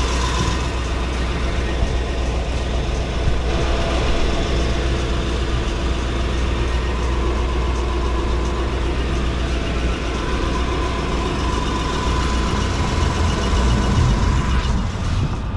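Lexus GX470's 4.7-litre V8 idling with a steady low rumble.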